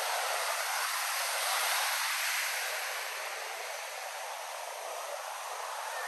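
Ocean surf washing on the beach: a steady hiss of breaking water that swells about two seconds in, then slowly eases.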